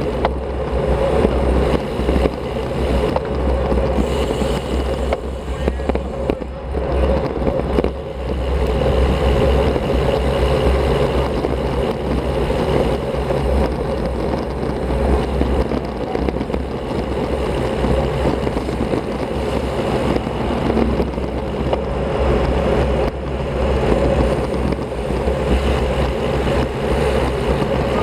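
Steady rush of wind on an action camera's microphone with the rumble of a road bike's tyres on the road while riding.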